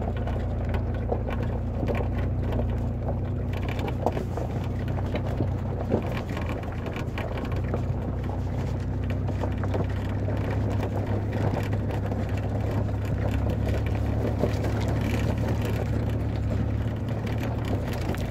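Chevy Blazer driving over a gravel riverbed: a steady low engine drone under a wash of tyre and road noise.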